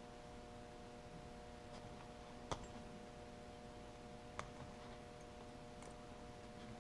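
Pliers or wire strippers and a plastic plug body being handled while plug wires are prepared, giving two sharp clicks about two and a half and four and a half seconds in, over a faint steady hum.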